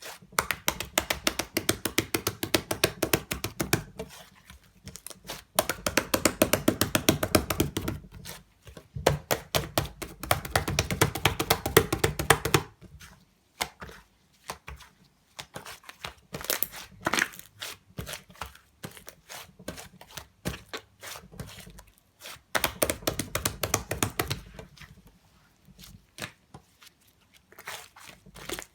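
Slime being squished and stretched by hand: dense runs of small clicks and pops from trapped air, in bouts of a few seconds with short pauses between.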